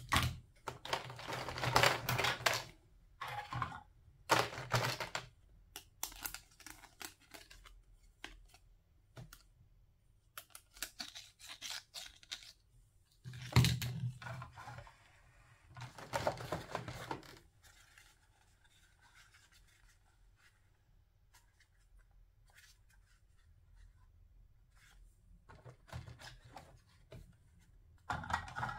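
Plastic toy food pieces being handled and set down, with the crinkle of a clear plastic blister tray as pieces are pulled out of it. The sound comes in several short bursts of rustling and clicking, with quiet gaps between.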